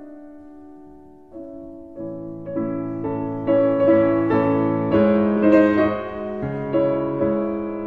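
Slow piano music in the background, with notes and chords that ring and fade; sparse at first, it fills out into fuller chords about two seconds in.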